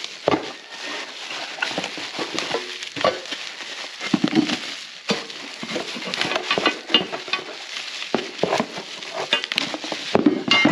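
Hands handling parts and wiring: a steady crinkly rustle broken by many small clicks and clattering knocks.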